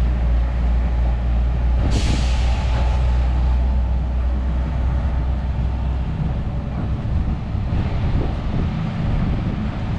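Pier railway train pulling away from the platform: its low rumble fades as it recedes. A sharp hiss breaks in about two seconds in and dies away within a second.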